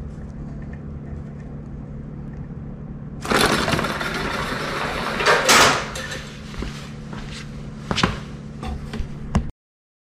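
Rubber-band-powered spool car let go on a concrete floor: about three seconds in, a sudden loud clattering rattle starts as it runs off, followed by a few sharp knocks. A steady low hum lies under it all, and the sound cuts off suddenly near the end.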